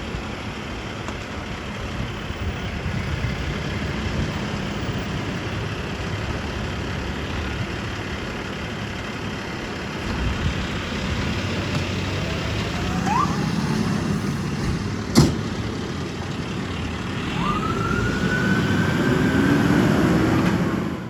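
Fire engine's engine running and building up, with its siren starting: a short rising wail, then a longer rising wail that levels off near the end. A single sharp click comes about two-thirds of the way through.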